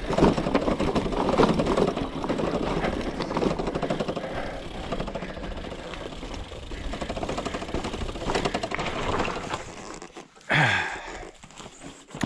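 Mountain bike rolling down a rough, steep dirt descent: a steady rattle with fast ticking from the bike over a noisy rumble. A short, sharp sound with a falling pitch stands out near the end.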